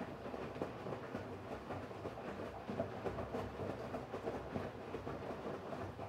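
Electrolux PerfectCare 600 EW6F3146EB front-loading washing machine running mid-cycle: a steady rumble with faint motor hum and irregular soft knocks.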